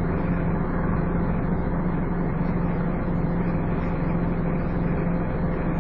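Scania N230UD double-decker bus engine running steadily under way with an even, unchanging tone, the vacuum-cleaner-like 'hoovering' sound of these Scania buses.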